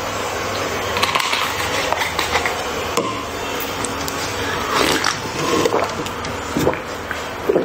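A plastic drink bottle and glass handled with a few light knocks, then a person gulping a drink from a glass, several swallows from about five seconds in.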